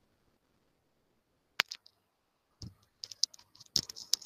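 Sharp clicking at a computer's keys and mouse: two clicks about a second and a half in, then a quicker, uneven run of clicks near the end.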